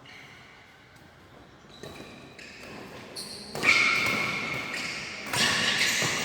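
Activity on an indoor badminton court, echoing in a large hall, growing louder, with sudden loud sounds about three and a half and five seconds in.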